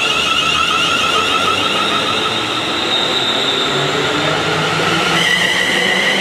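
ScotRail Class 380 (Siemens Desiro) electric multiple unit accelerating away, its traction inverters and motors giving a multi-tone electric whine over wheel and rail rumble. About five seconds in the whine tones step to a new pitch as the train gathers speed.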